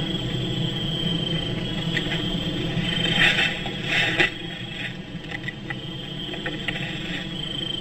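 Crickets chirping steadily, with two short scratchy rustles about three and four seconds in.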